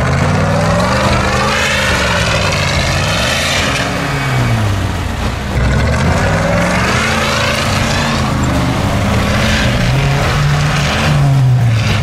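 Off-road vehicle engine revving up and falling back several times, with a whine above it that rises and falls with the engine.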